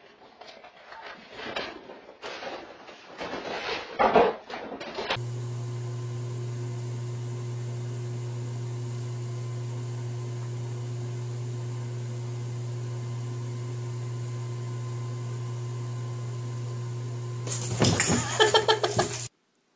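Knocks and clatter for about five seconds, then a steady electric hum of a whirlpool bathtub's pump. Near the end, loud splashing and scrabbling as a cat falls into the bubble bath, then it cuts off suddenly.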